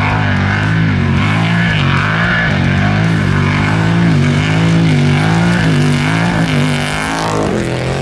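Off-road race truck's engine revving, its pitch rising and falling repeatedly as it drives over the dirt-track jumps. Rock music plays underneath.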